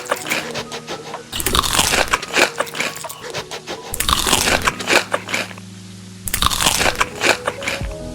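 Close-miked crunchy food being bitten and chewed, in four bouts of loud crunching with short pauses between them.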